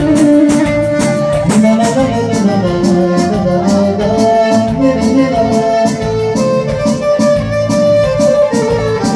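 Electronic keyboard played live and amplified: a melody over accompaniment with a steady beat.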